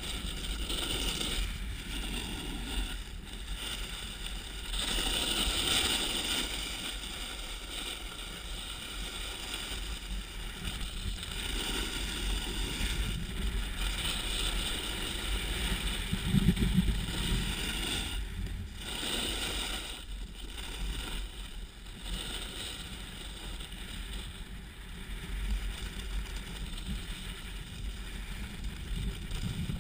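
Snowboard sliding over snow, its base and edges hissing and scraping as it swells and fades through the turns, over a constant low wind rumble on the microphone. A louder bump about sixteen seconds in.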